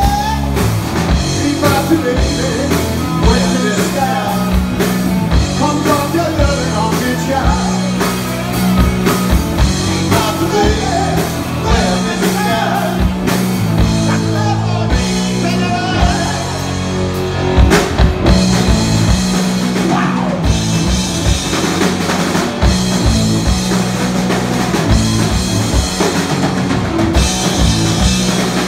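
Live rock band playing loud: a male singer over electric guitars, bass and a drum kit, with the singing mostly in the first half.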